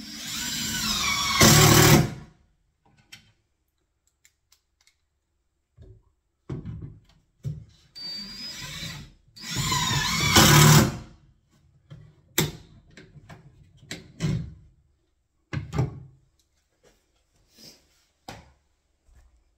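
Makita cordless driver driving two screws through a block of CLS timber into a kitchen cabinet: two runs of motor whine about eight seconds apart, each getting louder toward its end. A few short knocks and clicks follow.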